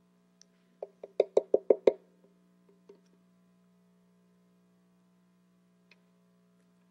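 A squeeze bottle of white glue being worked on a tabletop: a quick run of about seven sharp pops about a second in, then a few faint clicks. A steady mains hum runs underneath.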